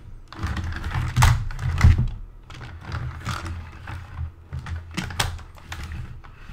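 Irregular plastic clicks and knocks of a BB-8 toy droid being handled while its head is moved over the round body to find where it attaches, over a dull handling rumble. The loudest knocks come about a second in, near two seconds, and again about five seconds in.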